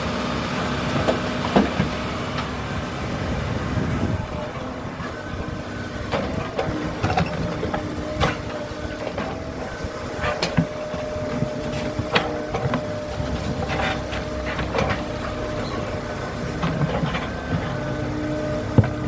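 Kobelco SK75 excavator's diesel engine running steadily under digging load, with a steady hum and scattered sharp knocks and clanks as the bucket works the trench.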